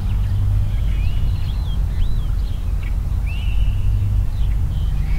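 Birds chirping, with many short whistled calls rising and falling in pitch, over a steady low rumble.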